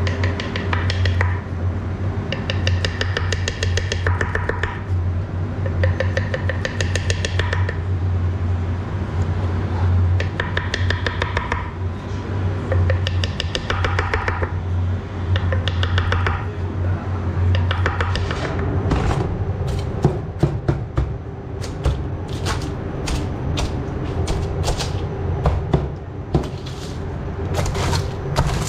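Kitchen work over a steady low machine hum. Pitched sounds come and go during the first half, then a quick run of sharp knocks and clicks of utensils fills the second half.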